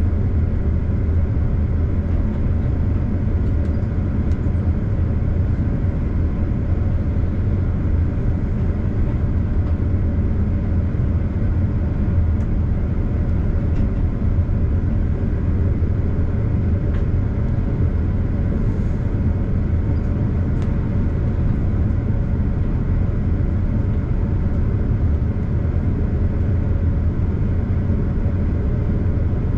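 Diesel regional train running steadily at about 80 km/h, heard from inside the driver's cab: a constant low rumble of engine and wheels on the rails.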